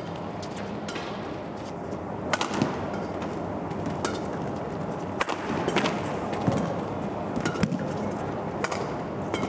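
Badminton rally: rackets striking the shuttlecock with sharp cracks, roughly once a second, over steady indoor arena background noise.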